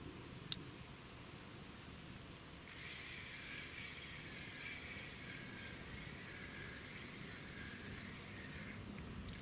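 Spinning reel being cranked to retrieve line: a steady whir that starts about three seconds in and stops abruptly just before the end. A single sharp click comes about half a second in.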